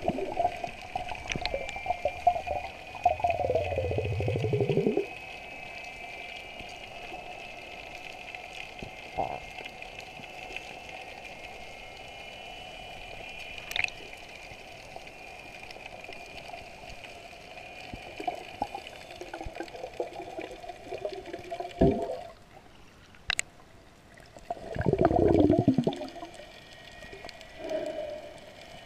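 Muffled underwater water noise heard through a submerged camera while snorkeling: rushing and bubbling swells as the swimmer strokes, loudest over the first few seconds and again twice about three-quarters of the way through, with a steady faint hum between.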